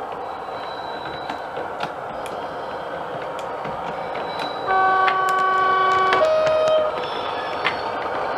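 DCC sound-fitted O gauge model diesel locomotive, taken by ear for a Class 47, running with its engine sound over scattered clicks. About halfway through it sounds its two-tone horn: a long low note, then a shorter higher one.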